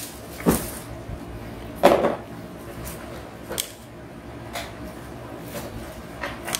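Tall cardboard firework boxes being handled and set down in a carton. Two sharp knocks, about half a second and two seconds in, the second the loudest, then a few lighter knocks.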